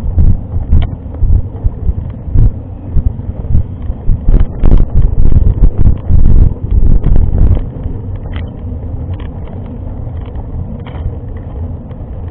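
Wind buffeting the microphone of a camera riding on a mountain bike: loud gusty rumbling for the first seven seconds or so, then a steadier, lower rush, with scattered clicks and knocks.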